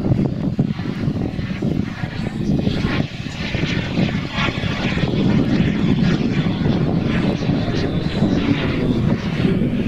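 Radio-controlled scale model T-33 jet flying overhead, its engine a steady rushing noise with a faint high whine above it; the sound dips briefly about three seconds in and then builds again.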